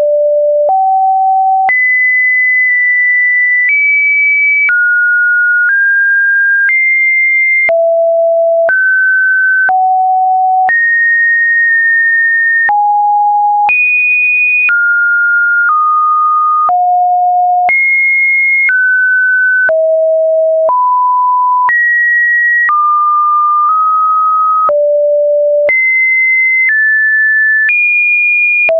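Computer-generated pure sine tones, one after another, each lasting about a second at a new random pitch between roughly 550 Hz and 2.5 kHz. Each pitch change comes with a faint click. This is the tone sequence of an automated YouTube upload-test video.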